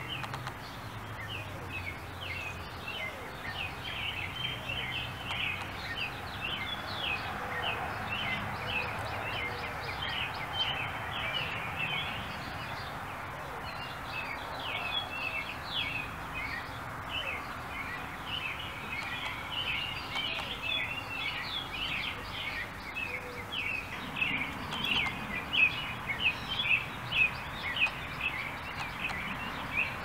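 Many small birds chirping continuously in quick, overlapping short notes, over a faint low steady hum. Several louder notes stand out near the end.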